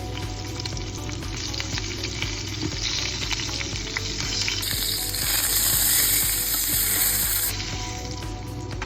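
Food frying in hot oil, with a steady crackling sizzle. It swells into a louder, hissing sizzle from about five to seven and a half seconds in, then settles back.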